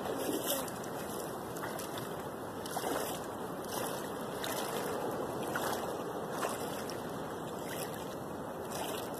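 Steady wash of ocean surf, with a few faint clicks.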